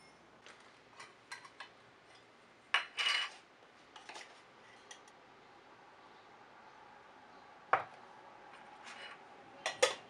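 A metal spoon and a glass clinking, and tins set down on a wooden board, while baking ingredients are measured out: scattered light clicks and clinks, the loudest a cluster about three seconds in, a sharp clink near eight seconds and a quick double knock near the end.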